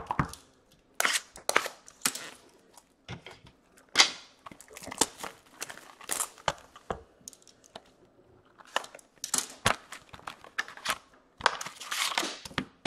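Packaging of a box of 2016-17 Upper Deck Ice hockey cards being torn open and crinkled. It comes as a series of sharp rips and crackles in several bursts with short pauses.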